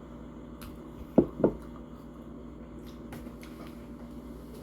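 Two short, loud mouth sounds close together about a second in, from someone eating, over a faint steady hum.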